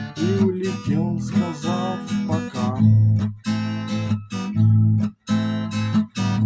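Acoustic guitar strummed in chords, with a voice singing over it for roughly the first half, then strumming alone with a couple of short stops near the end.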